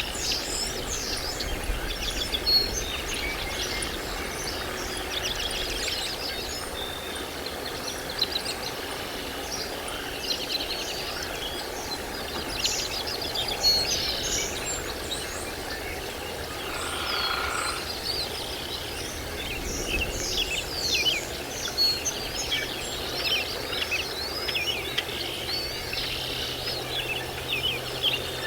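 Birds chirping and calling in quick, repeated short notes over steady background noise, with a brief steady tone about two-thirds of the way in.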